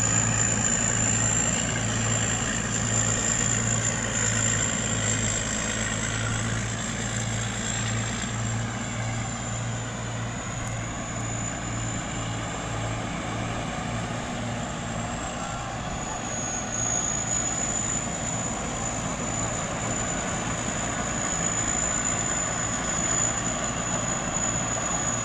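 Thai Seng Yont combine harvester running steadily while harvesting rice: a constant low diesel hum with a steady high-pitched whine from the machinery over it.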